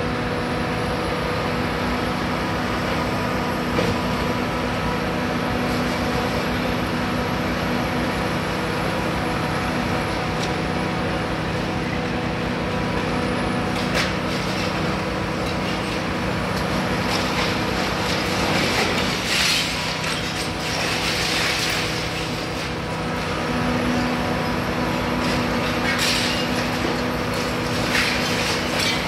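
Hitachi Zaxis 350 high-reach demolition excavator running steadily, its diesel engine and hydraulics humming. Bursts of crunching and clatter of broken concrete and brick come about two-thirds of the way through and again near the end, with a few sharp cracks earlier.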